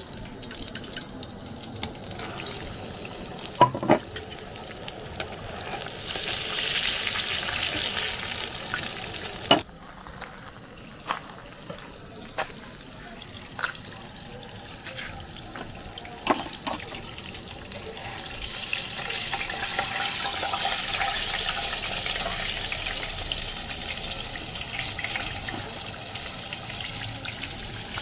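Plantain fish pies deep-frying in hot oil in a metal pan: a steady sizzle that swells louder twice. Occasional sharp clicks, mostly in the first half.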